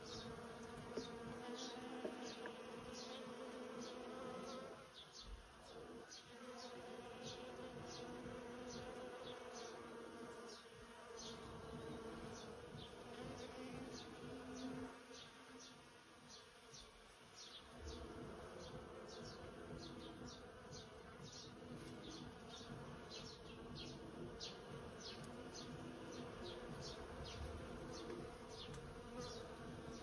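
Many bees buzzing as they forage in a flowering persimmon tree: a steady, faint hum that eases off briefly twice. Through it runs a short high chirp repeating about twice a second.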